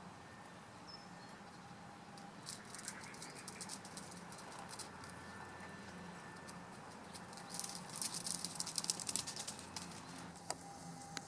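Six-week-old puppies scampering and scuffling while they play, giving two spells of quick, crisp patter and scrabbling.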